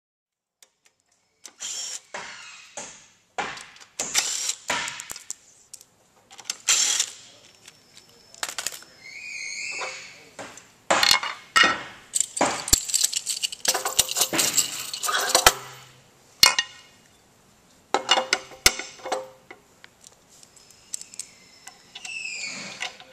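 Metal clinking and rattling as a scarifier cutter drum, with its loose cutters, and the mounting bolts are handled and set down, with a few short squeaks between the clinks.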